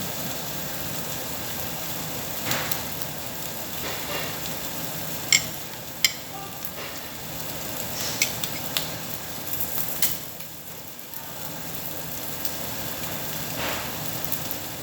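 Meat sizzling on a tabletop Korean barbecue grill, a steady sizzle with a few sharp clinks now and then.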